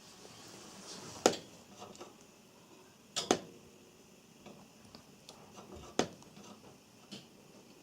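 Java sparrow pecking and tearing at komatsuna leaves: a few sharp, separate clicks and taps with fainter ticks between them, one of them a quick double.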